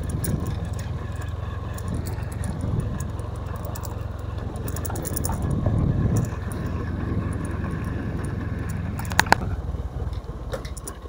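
Motorcycle running at a steady riding pace over a loose gravel road, its tyres crunching and the bike rattling. Two sharp clicks about nine seconds in.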